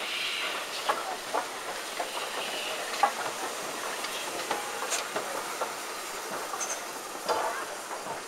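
Steam locomotive 61994, an LNER K4 2-6-0, rolling slowly past with irregular clanks and clicks from its wheels and motion on the track, and brief hisses of steam near the start and about two seconds in.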